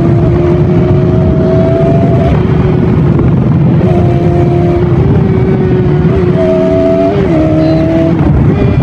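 Bajaj Pulsar NS200's single-cylinder engine running through its stock exhaust, holding a steady note with small shifts in pitch, dipping slightly about seven seconds in.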